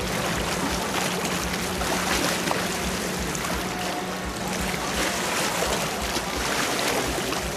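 River water rushing and splashing in a steady, fairly loud wash, with music faintly behind it.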